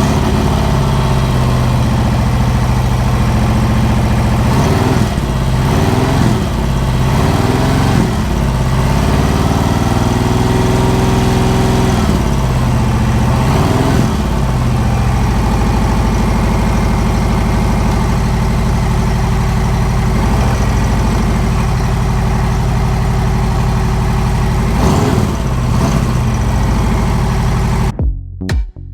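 Harley-Davidson Sport Glide's Milwaukee-Eight V-twin idling after a start, revved up and back down several times. Its exhaust heat shield is now fixed firm, which the owner says cures the rasping tinny sound it made on the throttle.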